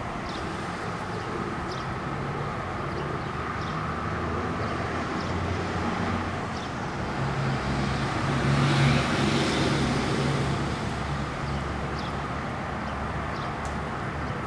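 Utility bucket truck's engine running steadily, swelling louder for a couple of seconds about eight seconds in. Faint short high chirps come and go over it.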